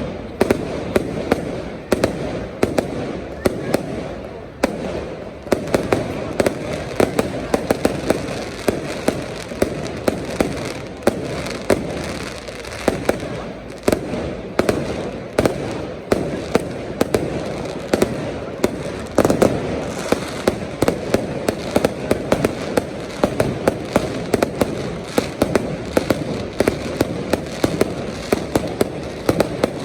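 Fireworks display going off continuously: a rapid series of sharp bangs, several a second, over a steady din of further explosions.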